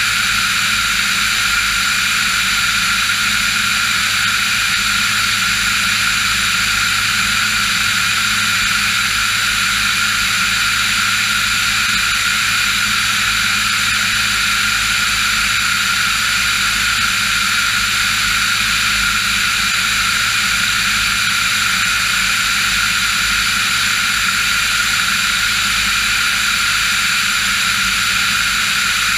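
Diamond DA-40 NG light aircraft in flight: its turbo-diesel engine and propeller run at a constant power setting, a steady drone with several held tones and no change in pitch.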